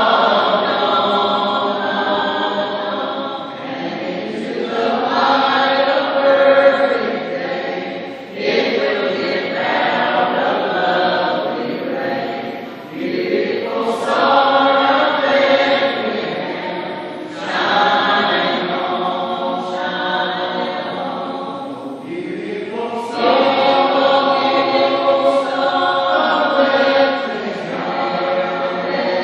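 Mixed choir of men's and women's voices singing together in long sung phrases, with short breaks between them every few seconds.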